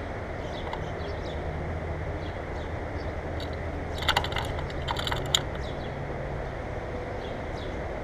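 A common grackle landing and feeding on a platform feeder: a cluster of sharp clicks and rattles on the wire grid and sunflower seeds starts about four seconds in and lasts about a second and a half, the loudest click near its end. Under it is a steady low rumble, with faint chirps of songbirds further off.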